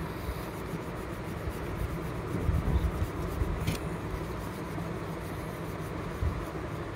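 Yellow crayon rubbed back and forth across paper while colouring in, a steady scratchy rubbing over a low background rumble.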